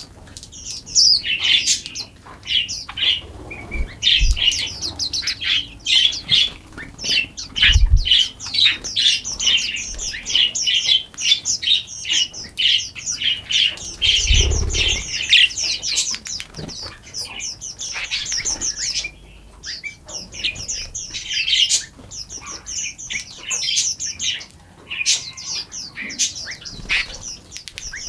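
Several small songbirds chirping and trilling together in a dense, busy chorus of quick high notes, with a few brief low thumps in between.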